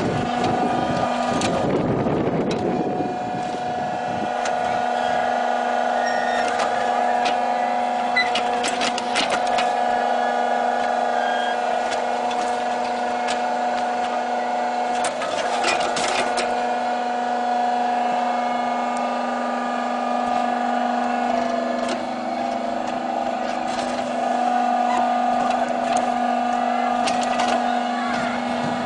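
Motor-driven hydraulic pump of a children's ride-on excavator humming steadily while its digging arm is worked. A few clicks and knocks come in twice, a third of the way in and about halfway through.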